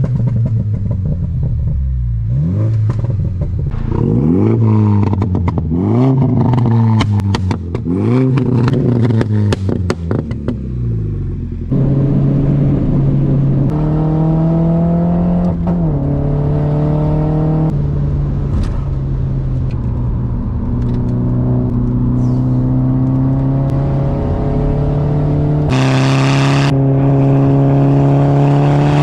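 Mini Cooper JCW's turbocharged four-cylinder engine through a straight-pipe exhaust, loud throughout. For the first dozen seconds it is revved up and down repeatedly, with many sharp pops and crackles. It then pulls hard under acceleration, the pitch climbing and dropping back at each upshift several times.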